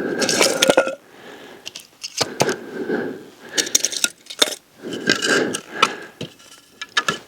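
Firewood and kindling being handled and laid for a campfire: irregular cracks, clinks and rustling, in several bursts.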